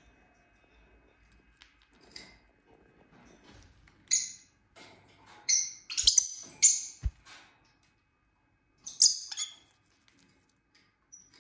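Pet lovebirds giving clusters of short, sharp, high-pitched chirps and squawks, starting about four seconds in and again a couple of seconds before the end, with two brief low thumps between them.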